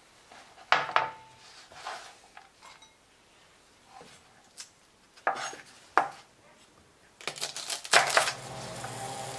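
Chef's knife knocking and tapping on a plastic cutting board as ginger and garlic are cut, with scattered single strokes, then a quick run of rapid chopping strokes near the end. Just after that a steady sizzle takes over: beef short ribs searing in a cast-iron skillet.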